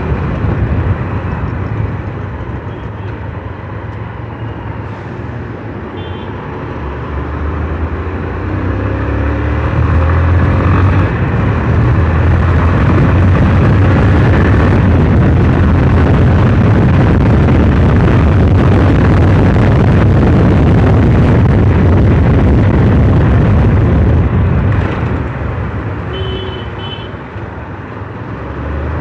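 Motorcycle riding noise, wind rushing over the microphone mixed with the engine and road noise of a Hero ZMR on the move. It grows louder about ten seconds in and eases off a few seconds before the end.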